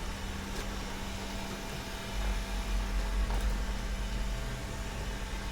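Steady low hum over a soft hiss, the deep rumble growing a little louder about two seconds in.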